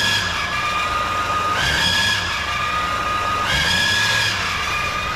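2018 Duramax 6.6 L5P V8 turbodiesel, run with its belt off and revved briefly twice, giving a high squeal that jumps up in pitch with each rev and drops back as it settles to idle. Metal has been found in the oil, and the owner suspects a failed engine bearing rather than the turbo.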